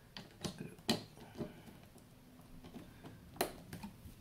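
A few sharp knocks and clicks as the metal chassis of a Honeywell avionics display unit is handled and turned over on a work mat. The loudest knock comes about three and a half seconds in.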